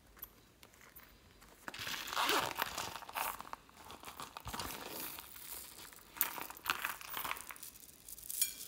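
A stiff vinyl coin purse being handled and its zipper pulled open, with crinkling and scratchy rustling starting about two seconds in, then the loose plastic pearl beads inside rattling and clicking as a handful is scooped out.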